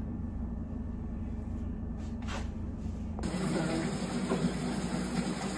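A low steady hum. Then, about three seconds in, a steady rush of hot water running from the tap into a bathtub as it fills.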